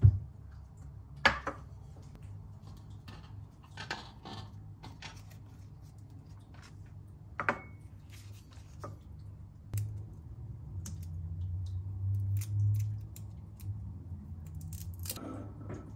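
Dishes and cutlery being handled: scattered clicks, taps and clinks, the two loudest about a second apart near the start, over a steady low hum.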